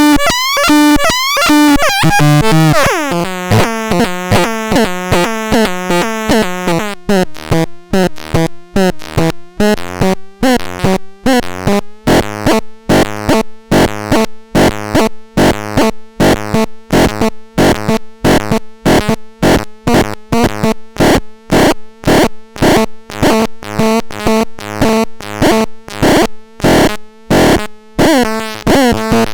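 Electronic synthesizer being demonstrated: a falling pitch sweep about three seconds in, then a fast repeating pattern of short notes, about two to three a second, over a steady held low tone.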